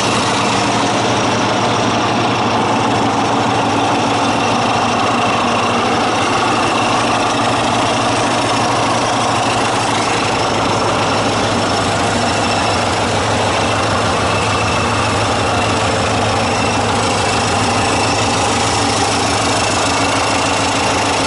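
Caterpillar D7E crawler dozer's diesel engine idling steadily, with an even clatter.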